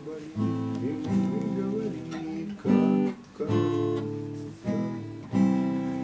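Acoustic guitar strummed: a chord struck every second or so, each left to ring and fade before the next.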